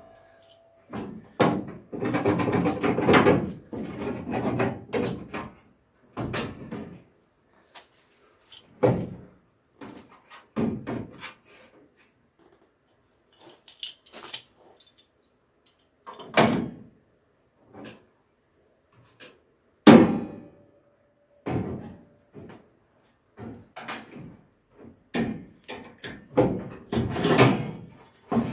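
Steel inner wheel-arch tub panel being offered up by hand and held with locking welding clamps: irregular metal knocks, clatters and clicks with short pauses between. Two sharper knocks stand out, the second about twenty seconds in, followed by a brief metallic ring.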